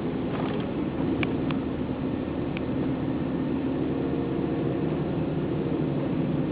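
Car driving: steady engine and road noise with a constant hum, and a few faint clicks in the first few seconds.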